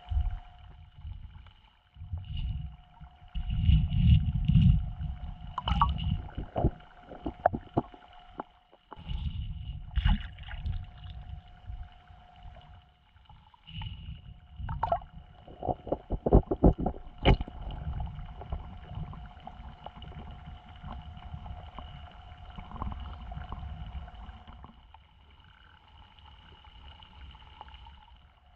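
Water sloshing and gurgling in irregular low surges, with scattered knocks and clicks from handling, over a faint steady whine.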